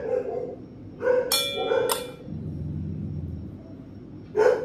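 Young puppies giving a few short barks and yips, with one longer, high-pitched yelp about a second in.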